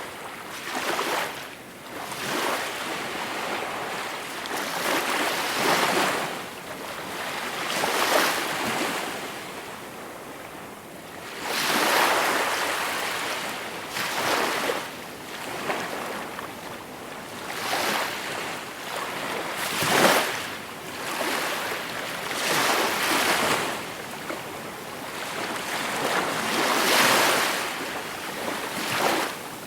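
Small waves breaking and washing on the shore, a repeated rush of surf every two seconds or so, the largest swells about twelve, twenty and twenty-seven seconds in.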